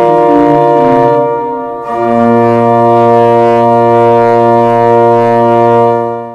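Instrumental closing music: a few shifting sustained notes, then a long held low chord from about two seconds in that fades out at the very end.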